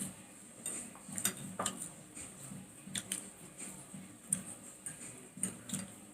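Close-up eating sounds: quiet chewing with irregular small clicks and smacks, several a second.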